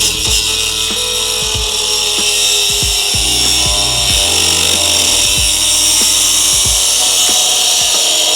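Angle grinder cutting into car body sheet steel: a steady, high-pitched grinding that builds up in the first second and then holds. Background music with a steady beat plays underneath.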